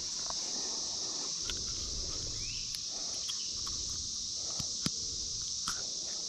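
Steady high-pitched chorus of insects, with rustling handling noise and a few sharp clicks, the loudest just before the five-second mark.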